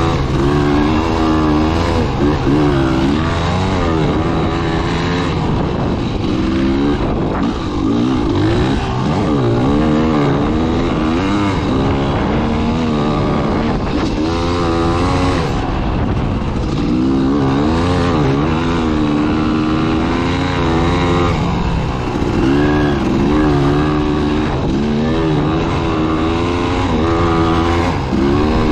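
Dirt bike engine revving up and down as it is ridden through soft sand, its pitch rising and falling every second or two as the throttle is opened and closed.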